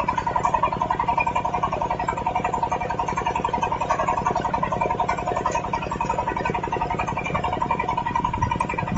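The portable drilling rig's 25 HP diesel engine running steadily, with a fast, even pulse.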